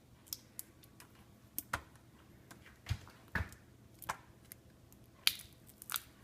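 Irregular light clicks and small knocks, about a dozen, from a bowl of crushed honeycomb being tipped and scraped into a bucket strainer; the loudest knocks come around the middle and near the end.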